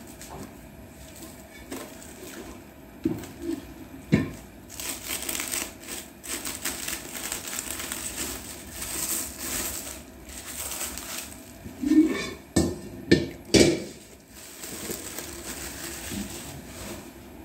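Clear plastic film wrapped around a bronze bowl crinkling as it is handled and pulled back, most densely in the middle stretch. There are a few sharp knocks from the bowl being handled, the loudest a little before the end.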